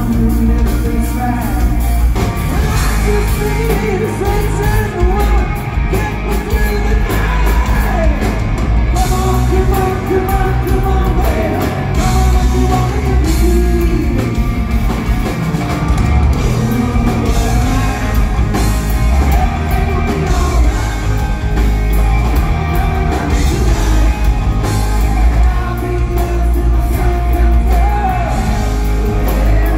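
Live hard-rock band playing loud with electric guitars, bass and drum kit, a singer's voice over the top, heard from the audience in a hall.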